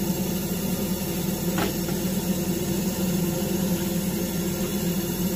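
Heatline gas boiler's fan and pump running with a steady hum, with a single click about one and a half seconds in, as the boiler goes through its ignition sequence without lighting. Fan, pump, air pressure switch and sparks are all working, which leaves the circuit board or the gas valve as the fault.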